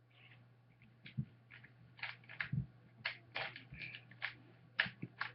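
Plastic Rubik's Cube layers being turned by hand: an irregular run of short clicks and clacks, several a second.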